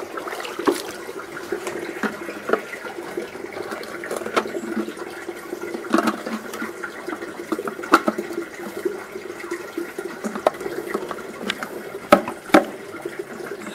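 Water sloshing and splashing in a plastic bucket as a submersible pump's parts are scrubbed with a brush, with scattered sharp plastic clicks and knocks as the pump's plastic intake cover is handled; the loudest knocks come near the end.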